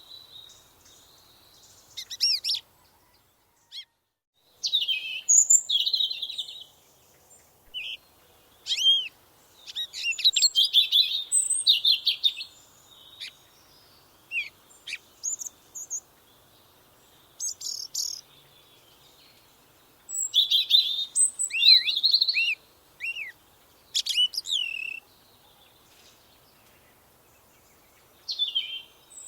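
Small songbirds chirping and singing short, high-pitched trilled phrases in repeated bursts, with brief pauses between them.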